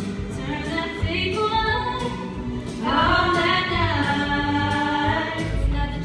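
A group of women singing together on stage, louder and fuller from about three seconds in.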